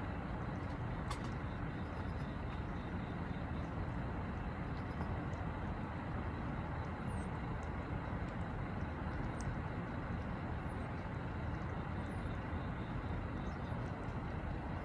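Steady low rumble of distant traffic, with a few faint, soft clicks.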